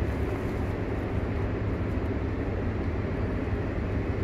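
Steady low rumble of vehicle traffic noise.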